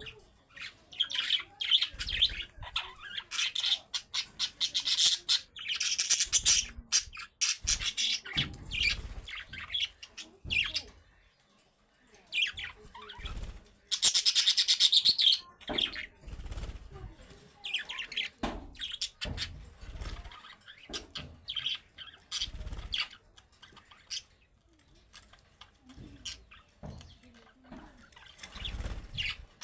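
Budgerigars chirping and chattering in quick high twitters, with louder bursts of warbling now and then and a few soft low thumps.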